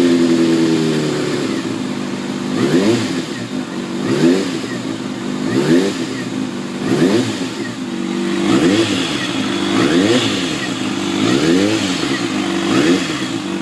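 Kawasaki ZX-6R inline-four engine running with a steady tone at first. From a couple of seconds in, the throttle is blipped over and over, each rev a quick rise and fall in pitch, about one every second or so.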